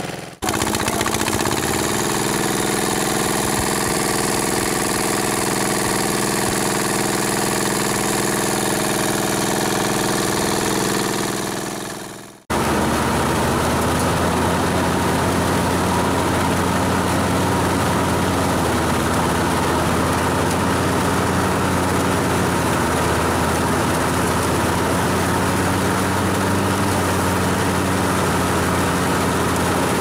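Portable engine-driven rice thresher running steadily while threshing palay, a constant mechanical hum. About twelve seconds in, the sound briefly drops out and comes back with a lower hum.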